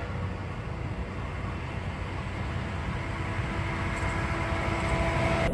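GE-built diesel-electric locomotive hauling a loaded coal freight train, approaching at speed. Its engine and wheel noise grows steadily louder, and a faint steady engine tone comes in about three seconds in.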